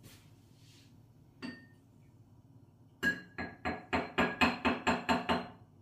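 A teaspoon stirring in a cup, clinking against its sides: one clink, then a quick run of about a dozen ringing clinks at roughly five a second.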